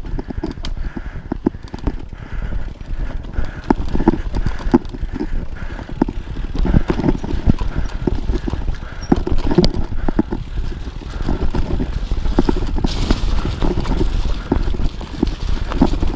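Full-suspension mountain bike descending a dirt singletrack: tyres rolling over the ground, with frequent irregular knocks and rattles from the bike over bumps, over a low rumble. From about two-thirds of the way in, a brighter hiss joins as the tyres run through dry leaves.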